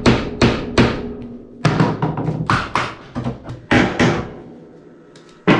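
Irregular series of loud knocks and bangs, about a dozen hard impacts of work in a boat's engine-bay bilge during clean-out, with a last sharp one near the end.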